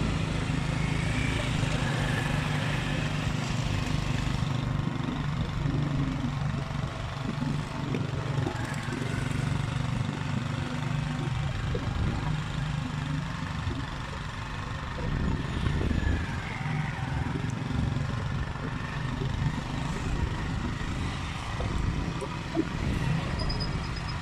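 Steady low engine hum with a low rumble on the microphone, a continuous outdoor background with no single event standing out.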